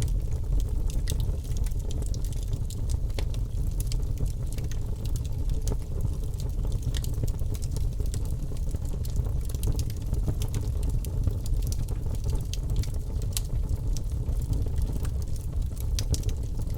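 Birch logs burning in a fireplace: a steady low rumble of flame with frequent sharp crackles and pops from the wood.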